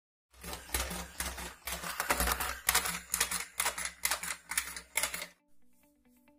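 Four-legged DIY walking robot driven by a small yellow BO gear motor: a steady motor-and-gear hum under a rhythmic clatter of its acrylic legs on the desk, about two clicks a second. It stops suddenly a little after five seconds in.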